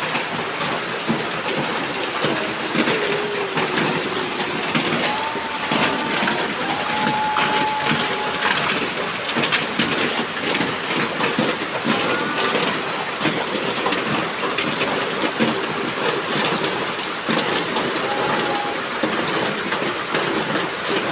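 Heavy rain falling steadily, with many sharp drop impacts close by.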